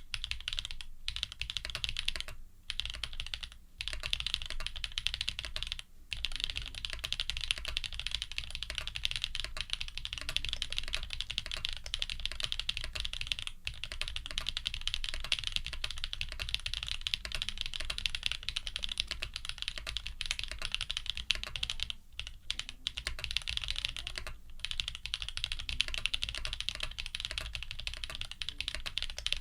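Fast, continuous typing on an F1-8X custom mechanical keyboard with an aluminium plate, lubed Jade Black linear switches and Leopold PBT keycaps, broken by a few brief pauses.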